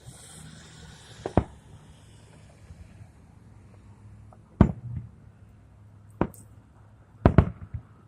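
Aerial fireworks going off: a hissing launch, then five sharp booms at uneven intervals, the last two close together.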